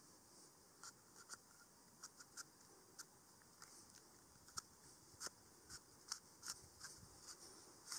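A string of small, sharp, irregular clicks over a faint steady hiss, about two a second and coming closer together after the first few seconds.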